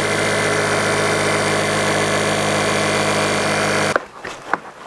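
12-volt electric air pump running steadily with an even hum, inflating the boat's stiff drop-stitch floor through its hose, then switched off abruptly about four seconds in. A few faint clicks and knocks follow.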